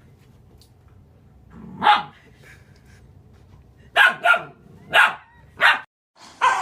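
A dog barking: one bark about two seconds in, then four sharp barks in quick succession a few seconds later.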